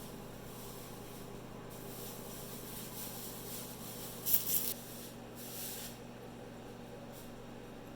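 Flux and solder sizzling in short hisses as a soldering iron melts solder onto a mouse switch's pins, the loudest about four and a half seconds in, over a low steady hum.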